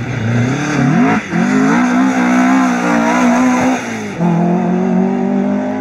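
Opel rally car's engine running at high revs, its pitch dipping briefly about a second in and again near four seconds between stretches of steady revs, as the car passes through a stage.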